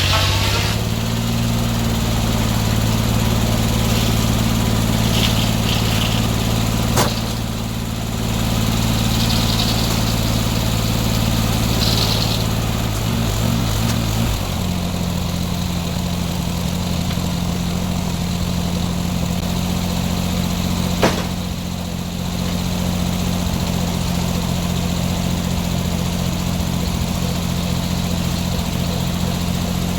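Gas engine of a circular sawmill running steadily, its note shifting to a different pitch about halfway through. Two sharp knocks come through, one about seven seconds in and one about twenty-one seconds in.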